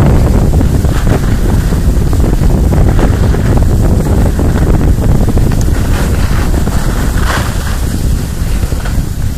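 Wind buffeting the camera microphone while skiing downhill: a loud, steady rumbling noise that eases slightly near the end.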